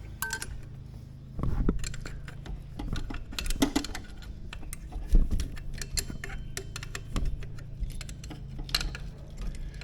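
Metal tools clinking and knocking against metal engine fittings in scattered irregular clicks, over a steady low hum.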